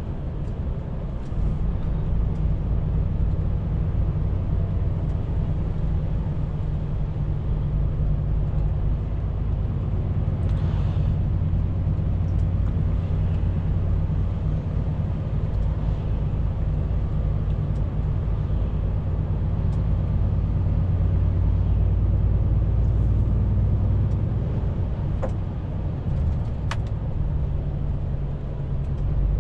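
Truck's diesel engine and tyre and road noise while driving: a steady low drone, with a couple of faint clicks near the end.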